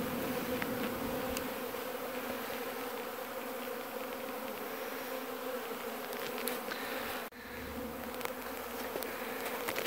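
A swarm of honeybees buzzing around their hives, a steady hum. It breaks off for an instant about seven seconds in.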